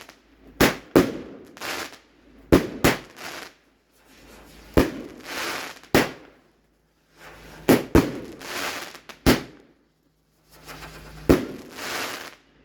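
Fireworks going off: a string of about ten sharp bangs, some in quick pairs, each followed by a brief crackling hiss.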